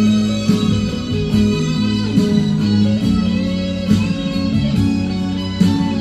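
Instrumental break of a 1980s Mandarin pop song: electric guitar carrying the melody over bass and a steady beat, with no singing.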